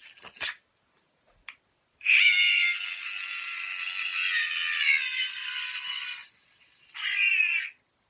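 Magic Yo-Yo N9's Z-stack hub cap squealing high-pitched as the yo-yo spins, for about four seconds and then again briefly, the pitch sagging slightly. The owner takes it for a faulty Z-stack, possibly a bearing that needs oiling.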